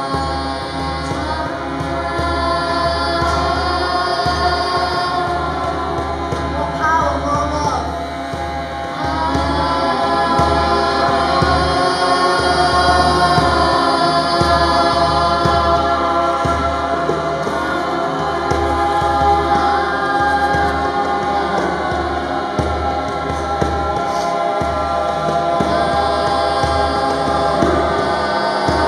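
A small group of voices chanting together in long held notes that overlap in harmony, over a low drone. The chant thins briefly about eight seconds in, then swells fuller and louder.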